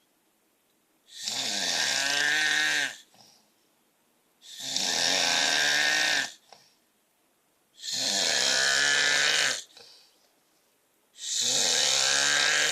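A man snoring loudly in his sleep: four long snores, about two seconds each and roughly every three seconds, with near silence between breaths.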